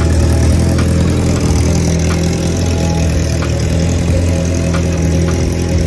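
Sport motorcycle engine idling steadily at a constant pitch.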